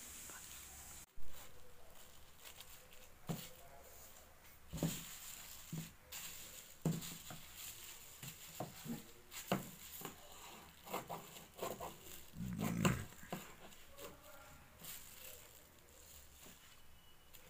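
Thin polythene carrier bags crinkling and rustling as they are handled and laid flat, with scattered short clicks and taps and a longer crinkle about three-quarters of the way through.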